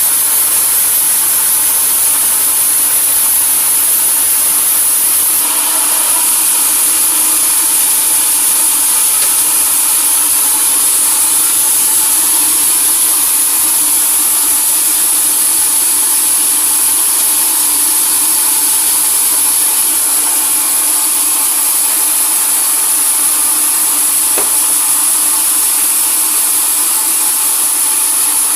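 Sawmill saw running steadily under load, sawing through a log: a continuous loud mechanical whine and hiss with no letup.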